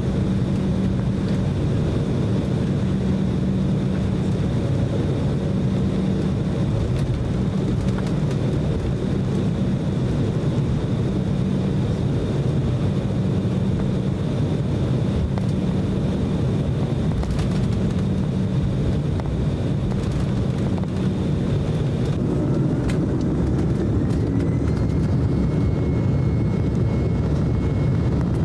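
Cabin sound of an Embraer E190's twin GE CF34 turbofans at taxi power: a steady hum with a high whine. About 22 seconds in, the whine rises in pitch and then holds at the higher note as the engines spool up to takeoff thrust for the start of the takeoff roll.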